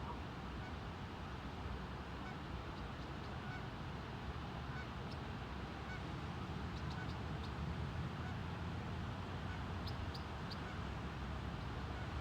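Steady rush of river water and wind, with a few faint, short waterfowl calls scattered through it.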